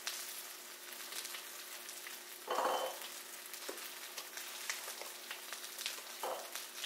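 A pot of sour soup on the stove hisses steadily with light crackles as handfuls of sliced giant taro stem (bạc hà) are dropped in, giving a soft splash about two and a half seconds in and a smaller one near the end. A faint steady hum runs underneath.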